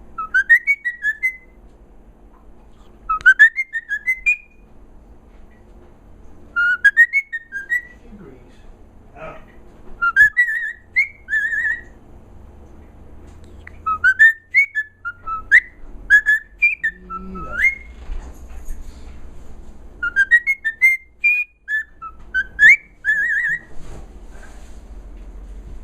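A pet bird whistling short phrases of quick rising and falling notes, in bouts that come every few seconds.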